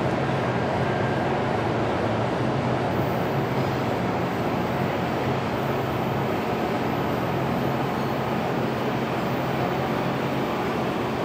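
Virginia Railway Express commuter train rolling away from the station: a steady rumble of wheels on rail with a low drone that fades near the end.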